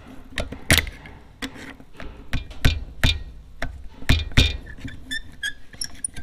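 Pliers working a steel cotter pin out of the clevis pin on a truck's brake chamber push rod: a run of sharp, irregular metal clicks and knocks, with lighter ringing metallic ticks near the end.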